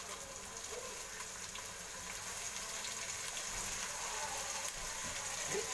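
Steady sizzling of hot oil and browned onions with ginger-garlic paste in a steel pot as sliced tomatoes are tipped in.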